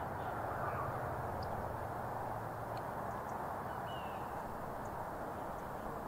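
Steady outdoor background noise with no distinct source, and a single short, faint bird chirp about four seconds in.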